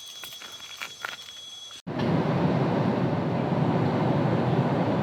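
Faint background with a few light clicks, then after an abrupt cut about two seconds in, a loud, steady rushing rumble.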